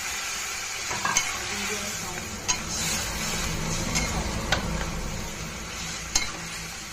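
Metal spatula stirring and scraping a watery eggplant-and-potato mash in a stainless steel kadhai, over a steady sizzle of the frying mixture. A few sharp clinks of the spatula on the pan, about one a second and a half apart.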